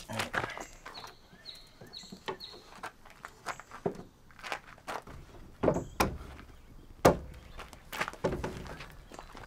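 Footsteps in flip-flops crunching on gravel and wooden knocks as long wooden rails are handled on wooden sawhorses, with several heavier wooden clunks in the second half.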